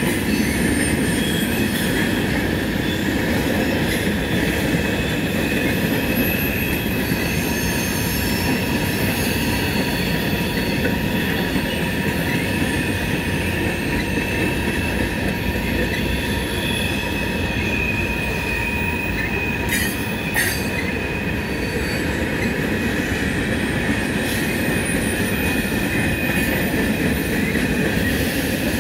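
Freight cars of a long manifest train, including tank cars, covered hoppers and boxcars, rolling past. There is a steady rumble of steel wheels on the rails, with high, drawn-out wheel squeal over it.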